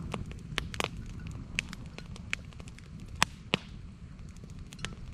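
Wood campfire crackling, with irregular sharp pops and snaps over a steady low rumble.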